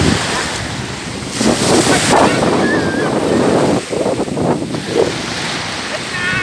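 Sea waves washing and breaking in shallow water around a wading person, with wind buffeting the microphone. The wash swells louder for a couple of seconds about a second in.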